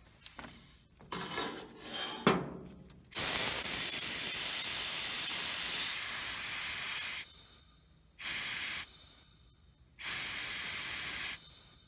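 Oxygen hissing out through the torch on the hose from a Victor oxygen regulator set to about 20 psi: one steady blow of about four seconds, then two short blasts. The gas is being flowed to test whether the regulator's delivery pressure creeps. A few light clicks and a sharp knock come first, at about two seconds.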